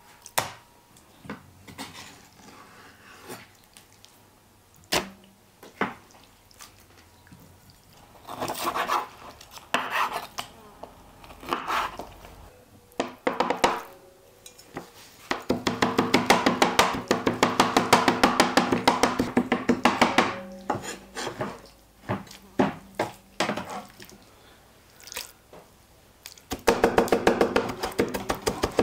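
Knife chopping food on a cutting board: scattered single knocks at first, then a fast, continuous run of chopping strokes in the middle and again near the end.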